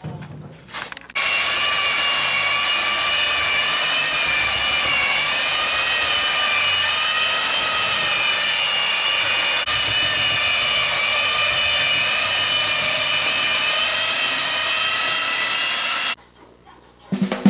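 Handheld electric belt sander running on a wooden tabletop: a loud, steady motor whine that starts about a second in and cuts off suddenly near the end.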